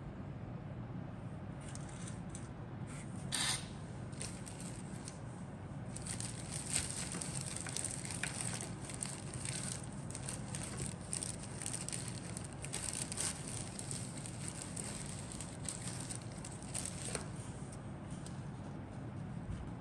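Irregular light crackling and clicking of plastic being handled, thickest through the middle stretch, over a steady low hum.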